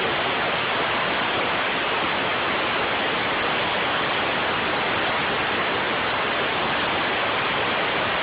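Steady hiss of compressed air venting from a Kinetrol vane-type pneumatic actuator as its speed control lets it slowly stroke a butterfly valve closed.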